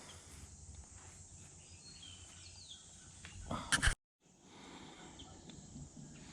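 Faint outdoor ambience with a few short, falling bird chirps, then a loud brief burst of noise just before four seconds, after which the sound cuts out for a moment and the faint ambience returns.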